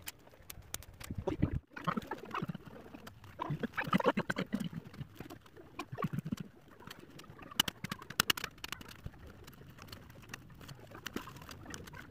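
Willow withies creaking, clicking and rustling as a large woven willow piece is handled and its upright rods are bent and worked, with many irregular sharp clicks and cracks.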